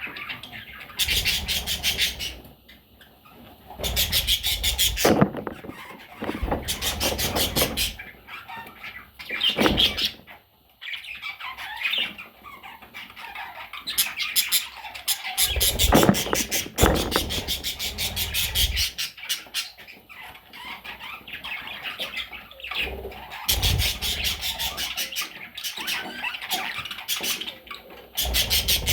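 Pet parrots calling, chirping and squawking, broken several times by short bursts of fast, rattling fluttering.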